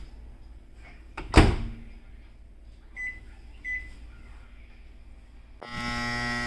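Samsung over-the-range microwave: a sharp knock about a second and a half in, typical of the door being shut, then two short keypad beeps. Near the end the oven starts up with a loud, steady buzz. The owner ties this buzzing to the turntable being stuck and not spinning.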